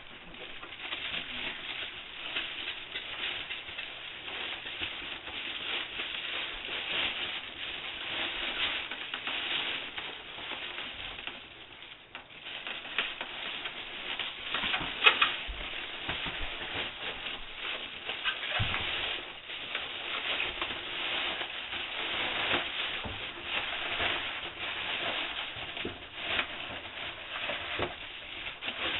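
Foil radiant barrier sheet crinkling and rustling as it is handled and wrapped around a water heater, with a sharper click about halfway through.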